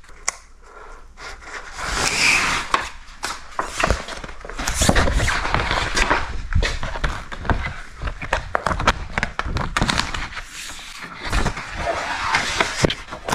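A large sheet of 3M Shadow Black Camo wrap vinyl rustling and crackling as it is handled over the hood, its printed backing liner peeling back, with irregular sharp crinkles throughout.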